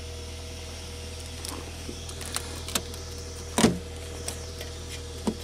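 Saab engine idling and warming up steadily just after a 4-degree cold start: a low hum with a faint steady tone above it. Light clicks and one sharp thump about three and a half seconds in come from handling the snow-covered car beside it.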